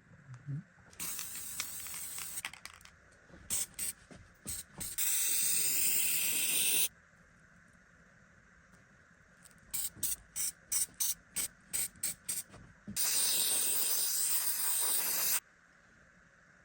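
Hissing spray in bursts: a long spray of about two seconds, a quick run of about nine short spurts, then another long spray of about two seconds, with some scraping and a few clicks near the start.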